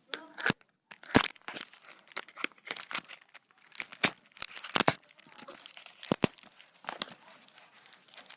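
Wrapping being torn and crinkled off a card game box by hand: a string of irregular sharp rips and crackles.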